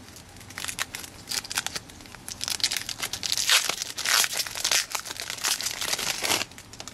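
Plastic trading-card pack wrapper being torn open and crinkled: a dense run of crackling that starts about half a second in, is loudest around the middle, and stops shortly before the end.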